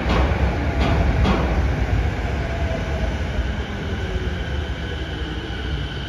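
Chiba Urban Monorail 'Urban Flyer' 0-series suspended monorail train running past with a low rumble, with a few sharp knocks in the first second and a half. The rumble slowly fades as the train moves on, and faint steady high tones come up in the second half.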